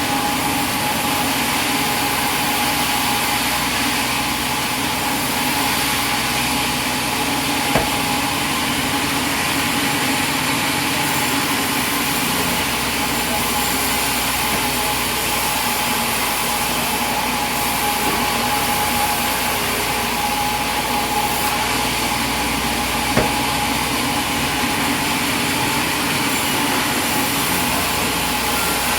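Sawmill machinery running steadily with a constant whine over a broad mechanical din, and two brief knocks, one about a third of the way in and one about four-fifths of the way in.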